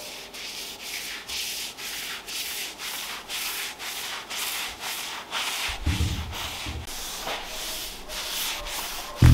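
A foam applicator pad rubbed back and forth over an oak tabletop, spreading wood oil, giving an even scrubbing at about two to three strokes a second. A brief low bump comes about six seconds in.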